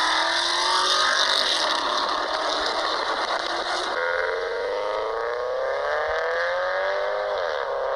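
Subaru Impreza WRX STI's turbocharged flat-four engine and exhaust accelerating, its pitch climbing steadily. About four seconds in the sound changes and climbs again, then the pitch drops briefly near the end.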